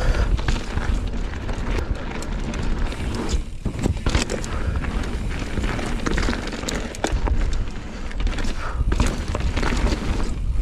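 Fezzari Delano Peak mountain bike riding down a dirt trail: tyres rolling over rough ground and the bike clattering, with many short knocks, under a steady rush of wind on the microphone.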